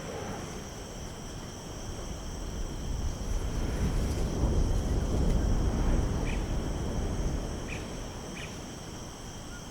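Steady insect chorus made of several unbroken high-pitched tones, under a low rumble that swells in the middle and fades again. Three short chirps come near the end.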